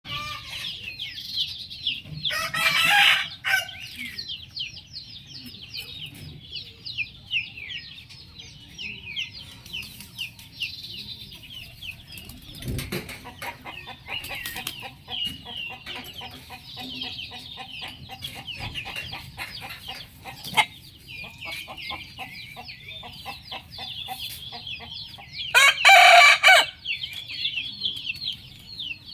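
A rooster crows twice, about three seconds in and again near the end. Under it runs constant high chirping from many small birds, with a stretch of rapid clucking in the middle.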